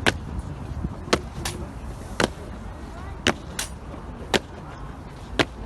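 Hard boot-heel strikes on stone pavement in a slow, measured march, about one a second, some landing as close double strikes, over a low steady background rumble.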